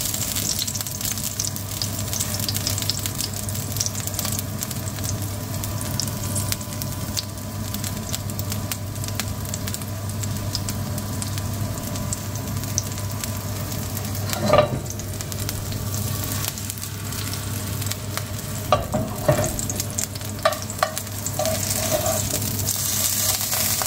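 A small patty of spiced lamb mince sizzling steadily as it fries in oil in a non-stick frying pan. About halfway through there is one clunk, and a few lighter knocks follow later.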